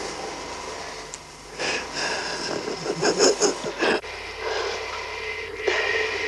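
A few short, irregular vocal sounds from a woman, not words. About four seconds in they cut off abruptly into a steady hum and hiss.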